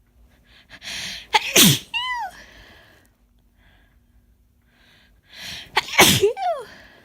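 Two sneezes from a woman with a head cold, brought on deliberately to relieve a tickle in her nose. They come about four and a half seconds apart. Each starts with a hissing in-breath and ends in a voiced cry that falls in pitch.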